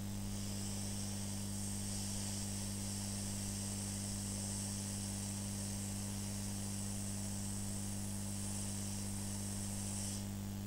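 Hot-air rework station blowing on an engine ECU board to melt the solder under an EEPROM chip: a steady high hiss of air that cuts off near the end. Under it runs a constant electrical hum, which is interference picked up from the soldering station's power supply.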